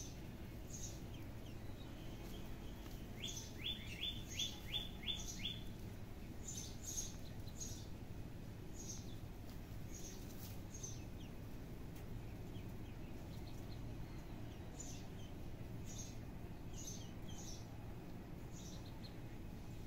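Small birds chirping, with short high calls scattered throughout and a quick run of about seven falling chirps a few seconds in, over a steady low outdoor background noise.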